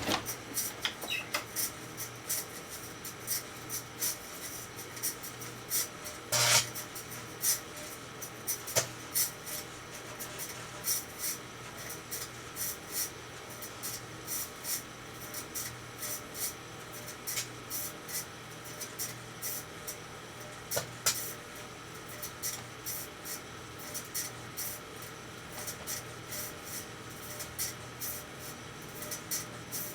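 Microwave oven running with a metal aerosol can inside: a steady hum with irregular sharp clicks and crackles throughout.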